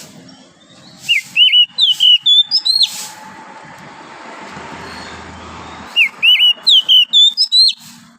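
Oriental magpie-robin (kacer) singing: the same short phrase of clear, sweeping whistled notes twice, about a second in and again near the end.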